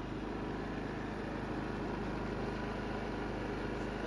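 Predator 3500 inverter generator's single-cylinder engine running steadily, just started after a new ignition control module restored its spark.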